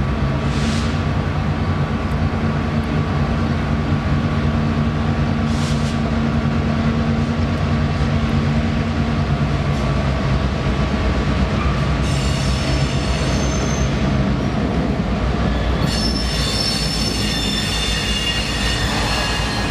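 Massachusetts Central diesel locomotives rolling slowly past, engines running with a steady low hum. From about twelve seconds in, the wheels squeal in high-pitched tones, briefly at first and then more strongly near the end.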